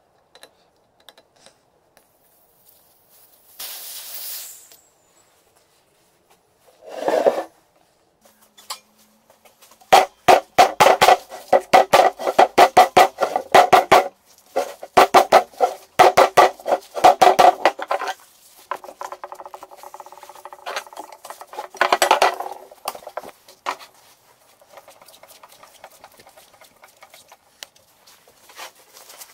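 A fast run of sharp metallic strikes on a steel car wheel and its tyre, several a second for about eight seconds, each ringing with a pitched tone. Before them, about four seconds in, air hisses briefly from the tyre valve as the valve core is taken out.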